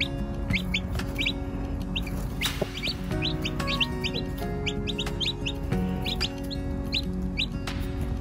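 Chicks peeping: many short, high, rising peeps, often in quick pairs, a few times a second, over background music with held notes.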